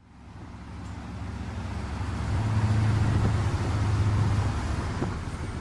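Heavy earthmoving machine's diesel engine running under load. It grows louder over the first couple of seconds, then holds a steady low drone.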